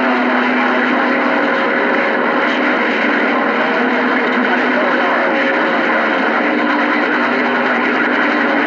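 CB radio receiver hissing with band noise and garbled, overlapping distant skip signals, with low steady tones that come and go over them; conditions are too rough to make anything out.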